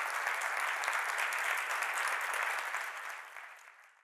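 Audience applauding: dense clapping that fades out near the end.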